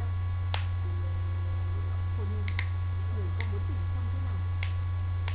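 Steady low electrical hum, by far the loudest sound, with a handful of sharp, isolated clicks spread through it.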